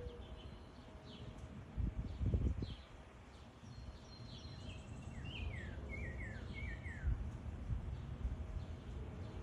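Backyard songbirds calling: a run of quick, falling chirps around the middle, over a steady background hum, with a few low thumps about two seconds in.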